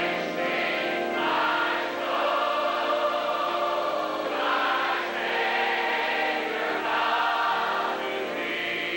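Large mass choir singing a hymn, long held chords that change every second or two.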